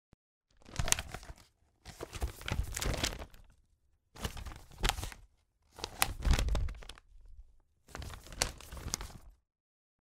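Paper being handled in five separate bursts of rustling and crackling, each lasting about a second, with short gaps between.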